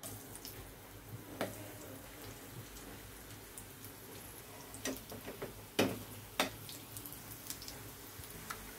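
Alu vadi slices shallow-frying in hot oil in a stainless steel pan: a steady sizzle with scattered crackles, and a few sharper pops about halfway through.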